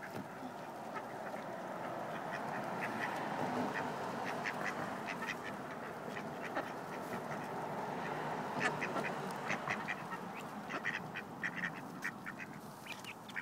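A flock of mallard ducks feeding at close range: soft quacking and many short clicks and ticks, busiest in the second half, over a steady background rush.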